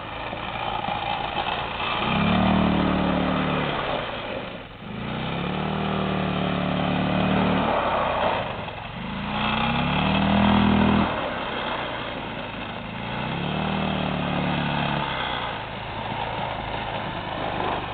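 ATV engine revving hard in four surges, its pitch rising each time, as it spins its wheels on the ice, over a steady hiss.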